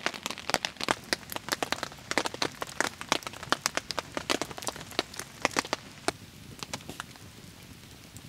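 Wood campfire crackling, with many sharp irregular pops that thin out over the last couple of seconds.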